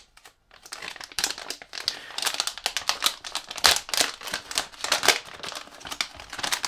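Crinkling of a stiff foil-and-plastic soft-bait packet as hands work it open, in a dense run of irregular crackles that starts about half a second in.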